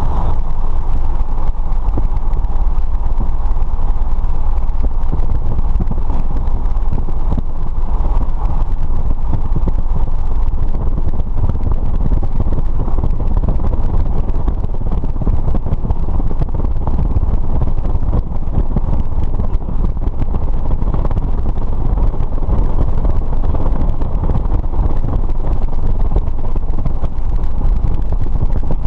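Single-engine light aircraft's piston engine and propeller running steadily, heard from inside the cockpit.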